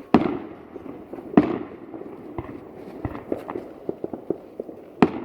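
Fireworks display: aerial shells bursting with three loud bangs, one at the start, one about a second and a half in and one near the end. Each bang trails off in an echo, and lighter pops and crackle fall between them.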